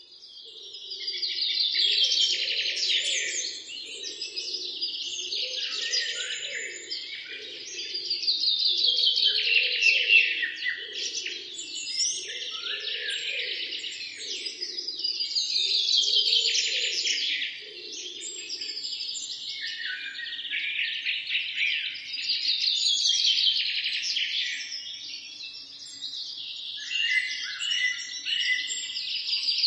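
Chorus of many birds chirping and singing, swelling and fading every several seconds. Under it, for the first half or so, a lower sound pulses about once a second.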